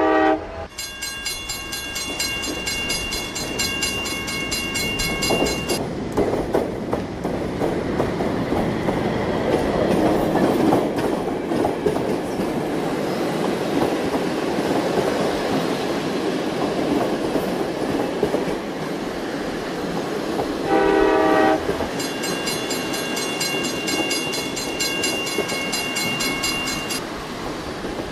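Children's fairground ride train running round its small oval track, its wheels rolling over the rails. Its horn sounds briefly about twenty seconds in, and a high steady electronic tone plays for several seconds near the start and again after the horn.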